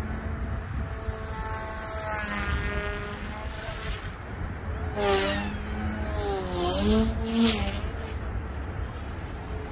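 OMPHobby M2 V2 electric RC helicopter flying overhead, its motor and rotor whine rising and falling in pitch as it manoeuvres, over wind rumble on the microphone.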